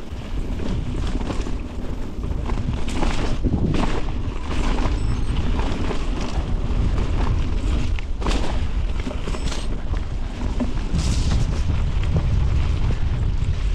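Mountain bike riding fast over a rough, wet trail: wind buffeting the action-camera microphone as a steady low rumble, with tyre noise and several sharp knocks and clatters from the bike hitting bumps.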